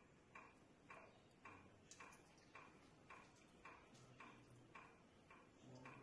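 Faint, steady ticking at a little under two ticks a second, each tick short and sharp and evenly spaced.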